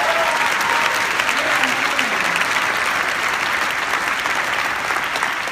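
Audience applauding: a dense round of clapping from a large crowd, easing off slightly near the end, with a few voices among it.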